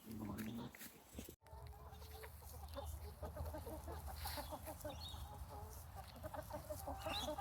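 A flock of chickens clucking quietly, many short clucks overlapping, after a brief cut-out in the sound about a second and a half in.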